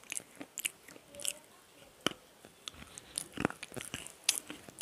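Chewing and biting pieces of black slate pencil close to a small clip-on microphone: a string of sharp, irregular crunches and crackles, the loudest a little past the middle and near the end.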